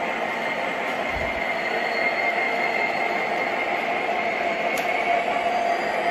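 O scale model train with Santa Fe diesel locomotives running along the layout track: a steady rolling noise of motors and wheels on the rails.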